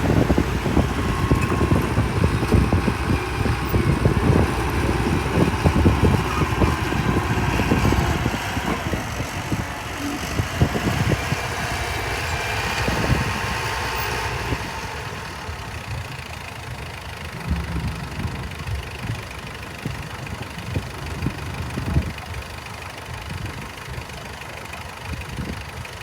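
Mitsubishi BD2F bulldozer's diesel engine running under load, a rough low rumble. About halfway through it eases to a quieter, steadier run.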